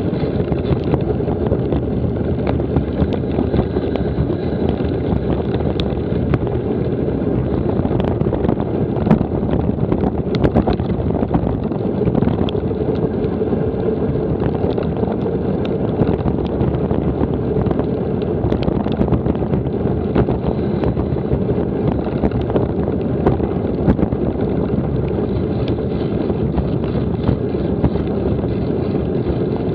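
Wind buffeting an action camera's microphone while cycling, a steady low rumble with scattered small ticks and knocks, likely from the bike on a rough road.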